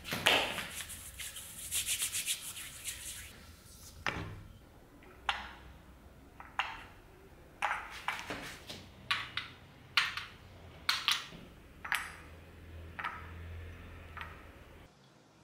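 Powdered palms rubbed briskly together in quick, even strokes, then a run of short, sharp sounds about once a second as a small plate-loaded dumbbell is lifted.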